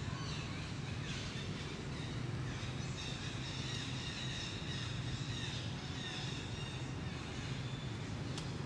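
Forest ambience: a steady low rumble with birds chirping high and thin, most clearly from about three seconds in to about seven, and a couple of sharp clicks near the end.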